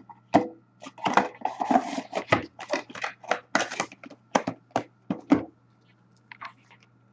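Trading-card packaging being handled up close: a quick run of crinkles, taps and knocks for about five seconds, with a short tearing sound about one and a half seconds in, then only a couple of faint clicks.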